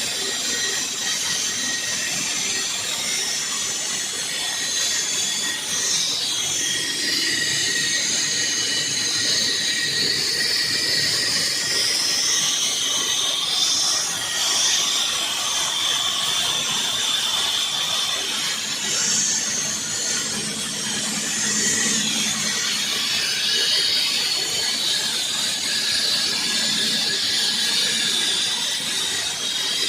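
Floor saw's diamond blade cutting into a finished floor, a steady grinding hiss with a high squeal that wavers up and down in pitch.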